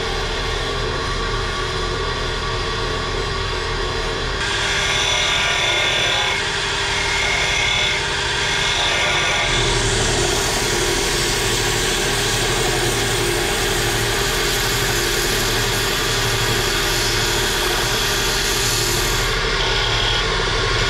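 Wood lathe running steadily while a hand chisel cuts a spinning wooden handle, and sandpaper is later held against it. The sound changes abruptly a few times, about four and nine seconds in and near the end.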